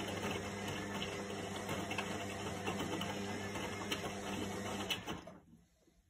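Indesit front-loading washing machine running with a steady hum and light clatter, then dying away to near silence a little after five seconds in.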